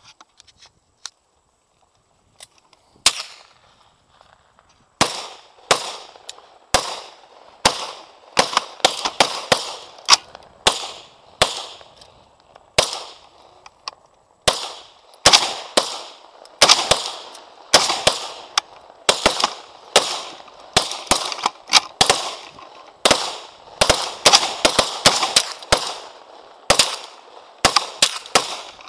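Gunfire: a single shot about three seconds in, then a long run of shots from about five seconds on at an irregular pace, often two or three a second, each trailing off in a short echo.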